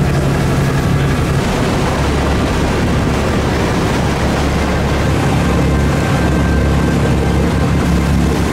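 Boat engine running steadily with water rushing past the hull and wind on the microphone, heard from aboard the moving boat.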